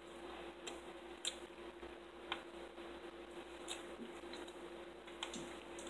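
A quiet room with a steady low hum and a handful of faint, scattered clicks and small taps.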